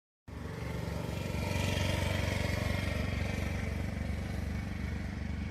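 An engine running steadily, starting just after a brief cut to silence and swelling slightly in the middle.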